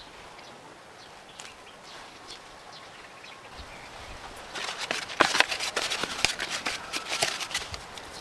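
A plastic bag crinkling as it is handled: faint scattered clicks at first, then from about halfway in a dense, louder run of crackles.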